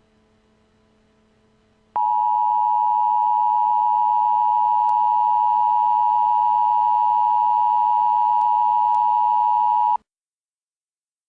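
Emergency Alert System attention signal: the steady two-tone 853 and 960 Hz alert tone that announces an emergency broadcast message. It starts about two seconds in, holds for about eight seconds and cuts off suddenly.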